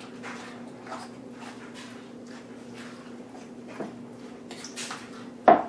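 Soft, wet squishing and slapping of sliced jicama being mixed into a cheese, ham and chicken-stock mixture in a bowl, with one sharp knock near the end.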